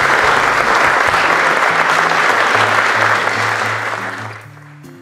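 Audience applauding, dying away about four and a half seconds in as background music comes up underneath.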